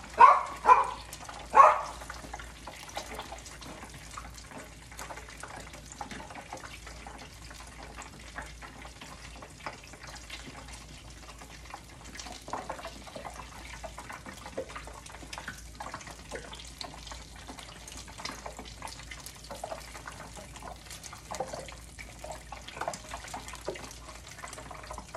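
Hot oil sizzling steadily in a frying pan as battered mini Monte Cristo sandwiches deep-fry, with scattered light clicks of metal tongs. Three short, loud sounds come in the first two seconds.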